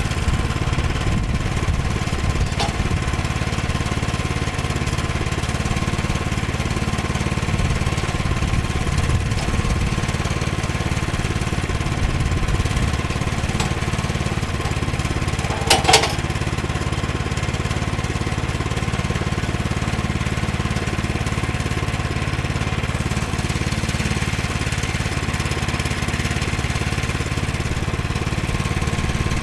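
Small gas engine of a Woodland Mills HM122 portable sawmill running steadily, with a steady whine over the engine. One brief sharp clank about 16 seconds in.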